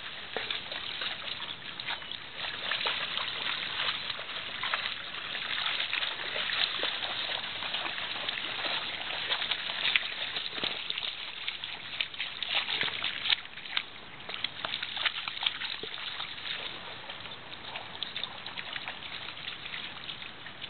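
Dogs, a vizsla among them, splashing and paddling through shallow pond water: a steady run of small splashes and sloshing.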